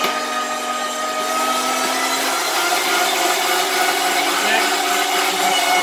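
Electric meat grinder running steadily as hot dogs are pushed through it: a loud motor whine over a lower hum, and the lower hum drops out about two seconds in.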